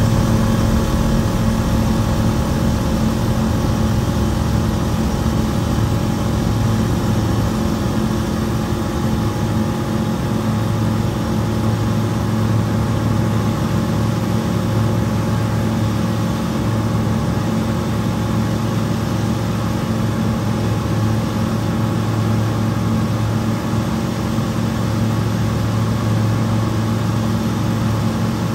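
Single-engine light aircraft's piston engine and propeller running steadily during takeoff and the climb-out, heard from inside the cockpit: an even drone.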